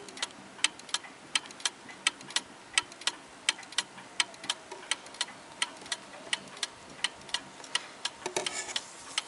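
1881 Ansonia marble mantel clock ticking steadily through its open escapement, about three even ticks a second.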